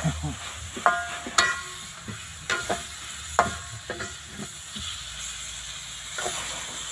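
A metal spoon stirring and scraping food in an aluminium wok, clinking against the pan several times with short metallic rings, over a steady sizzle of frying. The clinks come mostly in the first four seconds, then thin out.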